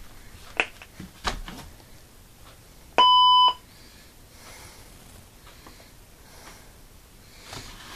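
Medtronic LIFEPAK 12 monitor/defibrillator giving a single steady beep about half a second long as it powers on, with a few faint clicks of handling before it.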